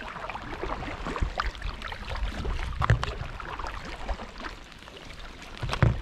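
Heavy rain drumming on a kayak's deck and on the loch surface: a dense patter of drops, with water splashing from paddle strokes and a few low thumps.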